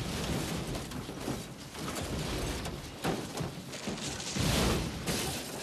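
A pickup truck tumbling down a rocky hillside: a run of crashes as the body hits dirt and rock, the heaviest about four and a half seconds in.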